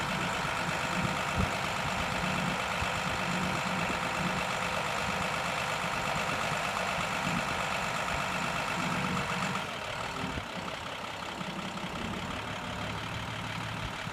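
Tractor engine running steadily while the hydraulics swing open the tipping trailer's up-and-over tailgate. About ten seconds in, the sound steps down to a quieter level.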